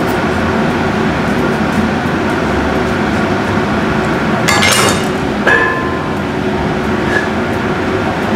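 Steady droning background hum. About four and a half seconds in comes a brief scrape, and a second later a sharp clink of hard kitchen utensils with a short ringing tone.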